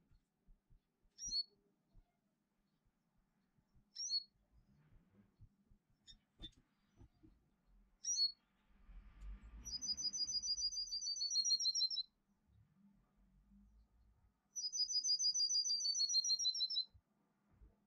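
Small songbird singing in a 'metallic' style: short high chips about every four seconds, then two fast, evenly paced trills of repeated two-tone notes, each about two seconds long and a few seconds apart.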